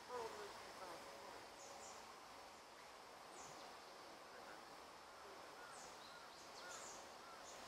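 Faint forest ambience: a steady low hiss with scattered short, high bird chirps throughout.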